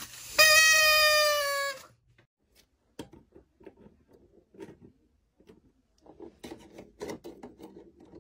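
A child's high voice holding one long call with a slightly falling pitch for about a second and a half, then faint, indistinct voices.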